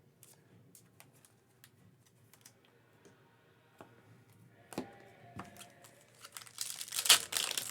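Faint clicks and taps of trading cards being handled. About six and a half seconds in, a loud crinkling starts: a foil card-pack wrapper being torn open.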